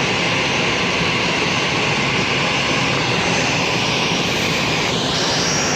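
Jet airliner's engines running, a loud steady rushing noise with a strong hiss; about five seconds in, the hiss shifts higher.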